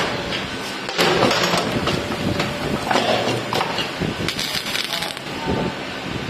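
Automatic steel wire bending and welding machine running, with repeated sharp metallic strikes over a continuous noisy clatter.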